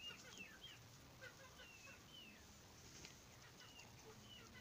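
Faint, short high chirps, a few a second, with soft taps of chickens pecking feed from a hand.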